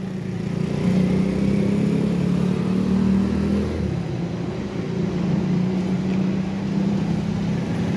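A vehicle engine running with a steady drone, a little stronger in the first half and easing back about halfway through.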